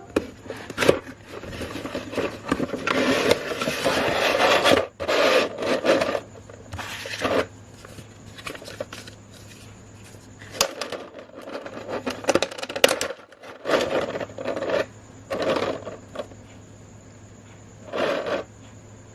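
Cardboard and plastic packaging of a boxed Nendoroid figure being handled and opened: irregular rubbing and scraping, with several sharp clicks and taps between quieter pauses.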